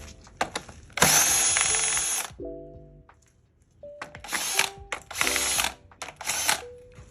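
A power tool running in four short bursts, the first and longest about a second in, spinning bolts out of a 5.7 Hemi V8 engine.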